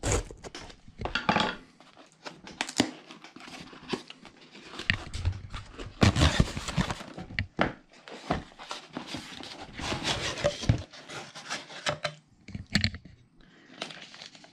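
A cardboard parcel being cut and opened by hand: packing tape tearing, cardboard flaps scraping, and plastic wrapping rustling and crinkling, with irregular knocks against the table. A long tear comes about six seconds in, and the handling dies down near the end.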